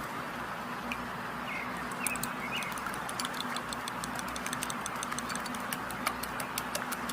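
Chicken drumsticks deep-frying in hot oil: a steady sizzle with many small crackling pops, which come thick and fast from about two seconds in.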